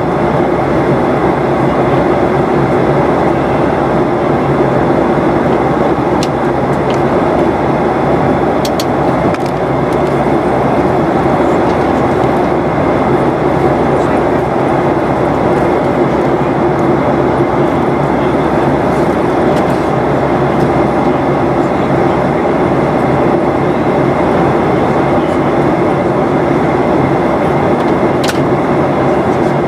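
Steady cabin noise of a Boeing 737-800 in flight, heard from a window seat: engine and airflow noise with a steady low hum, unchanging in level.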